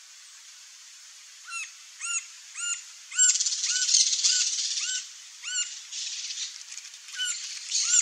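Green-barred woodpecker calling: a series of short, squeaky calls, about one and a half a second, beginning about a second and a half in. A dense, high chattering overlaps them through the middle and again near the end.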